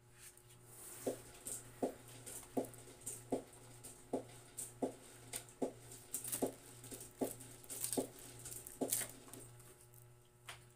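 A dog making a short sound over and over, about eleven times in a row, roughly three-quarters of a second apart, over a faint steady hum.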